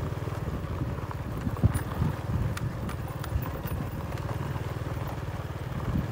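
Motorbike engine running steadily while riding slowly over a gravel dirt road, with tyres crunching and loose stones clicking a few times.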